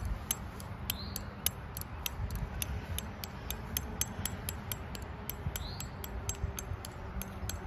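Claw hammer tapping a metal tent stake into the ground: quick, light, sharp clinks at an even pace of about four a second.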